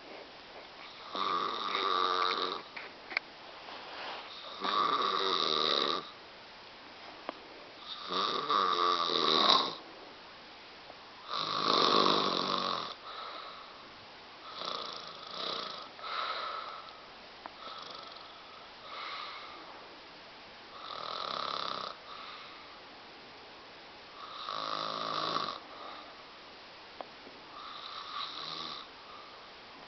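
A woman snoring in her sleep, one snore every three to four seconds, about nine in all, the later ones softer than the first few.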